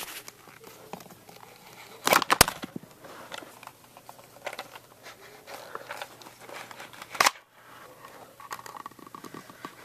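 Hard plastic clicks and handling noise from a toy foam-dart launcher being handled, with a quick cluster of sharp clicks about two seconds in and a single loud click about seven seconds in.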